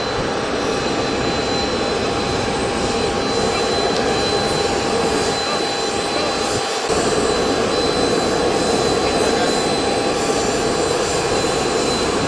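Business jet engines running: a steady rushing noise with a constant high-pitched whine.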